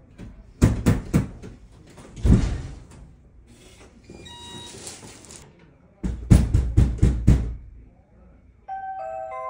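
Knocking on a door, in groups. There are three knocks shortly after the start and a single heavier knock near two seconds, then a quick run of about six knocks around six to seven seconds. A softer hissing sound with a few faint beeps comes in between.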